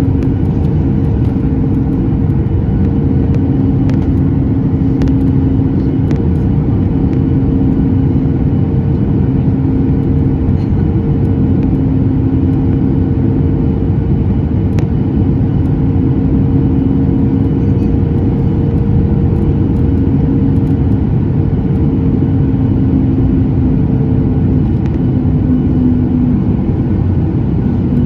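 Boeing 737 MAX cabin noise in flight: a loud, steady rush of airflow and engine rumble, with a low hum from the CFM LEAP-1B engines that fades in and out.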